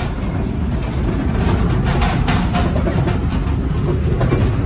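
Tractor engine running under a steady low rumble while the towed trolley's metal body and railings rattle and clatter over a rough road.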